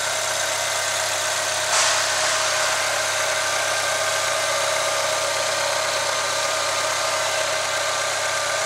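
Chevrolet Tornado's four-cylinder engine idling steadily, heard at the open engine bay. There is a short faint noise about two seconds in.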